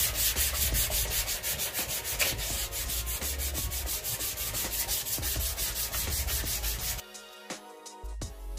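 Hand block sanding with a small sanding block and sandpaper: a steady rasping of rapid, even back-and-forth strokes that stops abruptly about a second before the end, when music comes in.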